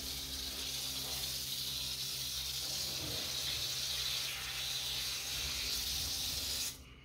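Garden hose running, its water spraying onto a small dog being rinsed: a steady hiss that cuts off suddenly near the end.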